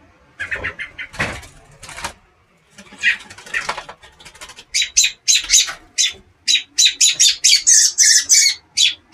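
Adult robin giving alarm calls at an intruder near its nest: a few scattered calls, then from about halfway a rapid, loud series of sharp, high calls, several a second.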